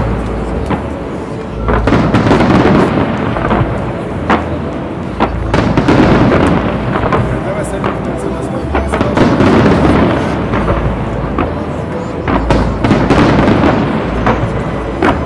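Dense fireworks barrage: many sharp bangs and crackles in quick succession over a continuous low rumble, swelling and easing every few seconds.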